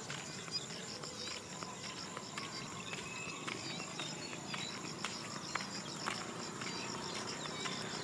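Insects in the paddy fields chirring steadily in a fast pulsing high band, with scattered short high chirps and a few light clicks over it.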